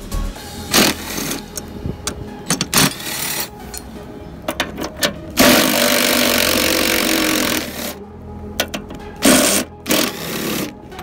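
Workshop tool sounds: scattered sharp clicks and knocks, with a loud, steady noisy burst lasting about two seconds just past the middle.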